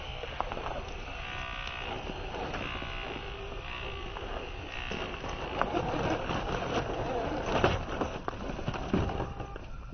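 Small electric motor of an RC scale crawler whining as it drives, with irregular clicks and knocks from the car moving over rough ground; a louder knock comes near the end.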